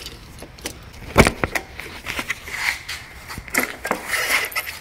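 Keys jangling and clicking as the key works the seat lock on a 2018 Honda Grom motorcycle, with a loud clunk about a second in, then clicks, rattles and scrapes as the seat is unlatched and lifted off.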